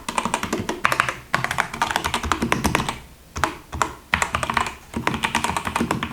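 Fast typing on a Gamebooster Fire Storm G918 mechanical keyboard with red linear switches: a dense run of key strokes, broken by short pauses about three and four seconds in.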